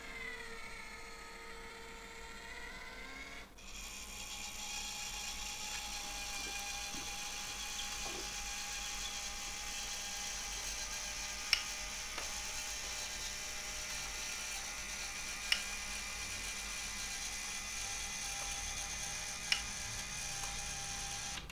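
Small electric gear motor of a homemade robot cart whirring as it drives along a wooden rail track, towing a small wheeled trolley. Its pitch dips and rises over the first few seconds, then it settles into a steady whir. Three sharp clicks come a few seconds apart.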